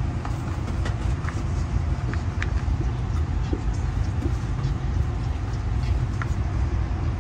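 Steady low rumble of a moving passenger train heard from inside a Budd-built stainless-steel Skyline dome car, with a few faint ticks and creaks scattered through it.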